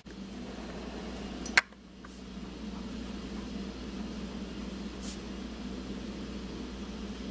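Steady low mechanical hum, with a single sharp click about a second and a half in; the hum drops out for a moment after the click, then carries on.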